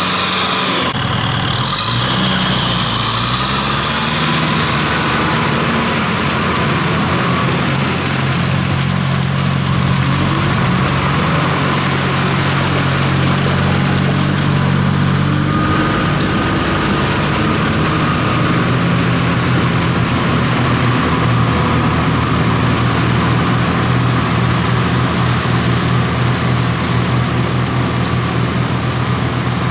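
Kubota diesel tractor engines running steadily while working a flooded rice paddy. The engine note shifts in pitch during the first few seconds, then holds even.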